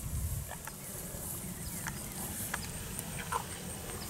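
Beef cattle shuffling about in a pen: scattered light hoof knocks and clicks over a low steady rumble.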